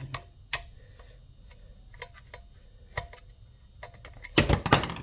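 Scattered single clicks and taps of parts and tools being handled at a workbench, then a short, loud clatter of knocks about four seconds in.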